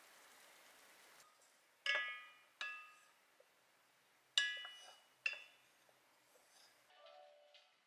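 A wooden spoon knocking against an enamel saucepan while stirring, giving four light ringing clinks: two about two seconds in, two more a couple of seconds later.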